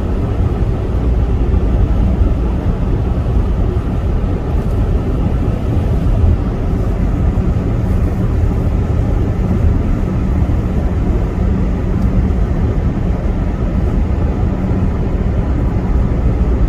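Steady road and engine noise inside a car's cabin while driving on a highway.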